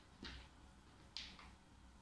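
Near silence: room tone with two faint, brief rustles, about a quarter second in and just after a second in.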